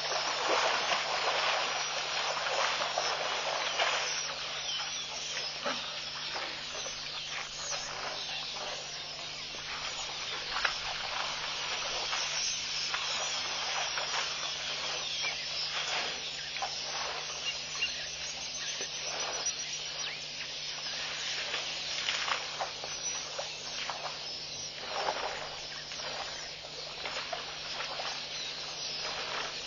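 African elephants sloshing and splashing in a muddy waterhole: an irregular wet hiss with many small splashes, over a faint steady low hum.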